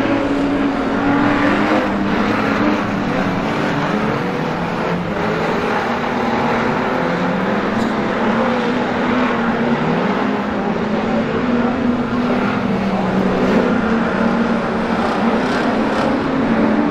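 A pack of street stock race cars running hard on a dirt speedway oval, several engines together, their pitch dipping and rising again as the cars lift for the turns and accelerate out of them.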